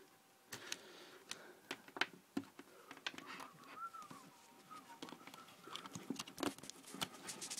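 Faint scattered clicks and taps of a hand handling a compact camera and pushing a USB cable plug into its port.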